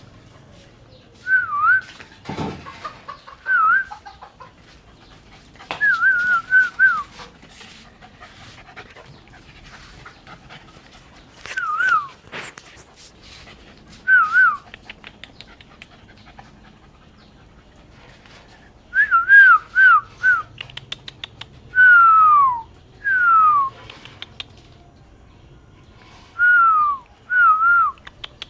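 Dog whining in short, high-pitched, wavering cries, several in quick succession, some sliding down in pitch.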